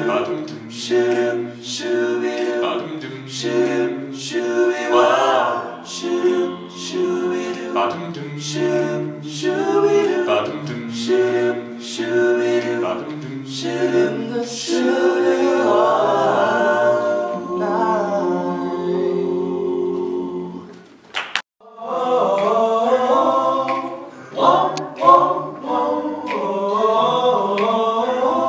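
A men's a cappella group singing in close harmony with no instruments. The singing breaks off briefly about three-quarters of the way through, then resumes.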